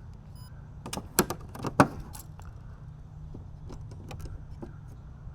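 A cluster of sharp metallic clicks and rattles, loudest about two seconds in, with a few fainter clicks later, over a steady low hum.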